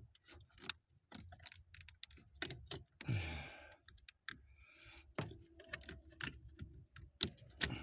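Irregular light clicks and plastic rattles of a car's wiring harness and connectors being handled under the steering column.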